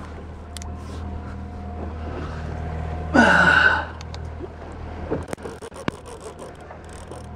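Boat motor humming low and steady while a trolling rod and line-counter reel are handled. About three seconds in there is a brief loud rasp, and a few sharp clicks and knocks follow.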